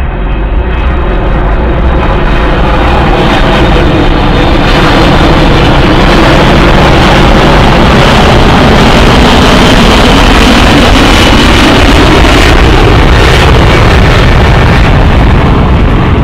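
A loud rushing, rumbling sound effect that swells over the first few seconds and then holds steady.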